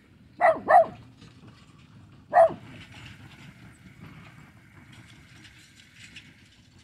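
A dog barking: two quick barks, then a single bark about two seconds later.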